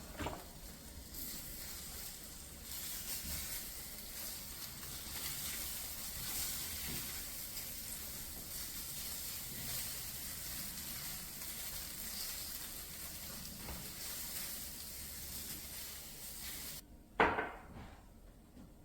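Seasoned food frying in a hot pan, a steady sizzle. The sizzle cuts off suddenly near the end, followed by one sharp knock.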